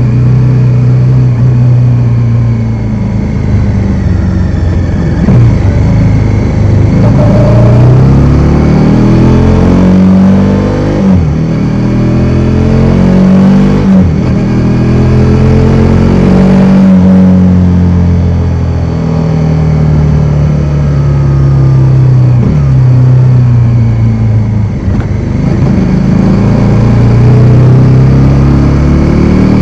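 Bajaj Dominar 400's single-cylinder engine under way, revving up and dropping back repeatedly as the rider works through the gears. There are several sharp drops in pitch at the shifts.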